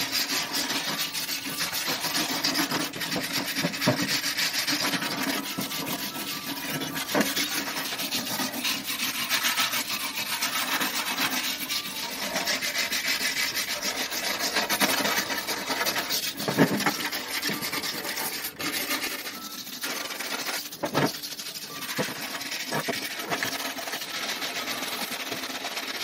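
Hand wire brush scrubbing rust off the steel body of an old wood-burning stove: continuous rapid rasping of wire bristles on metal, with a couple of sharper knocks past the middle.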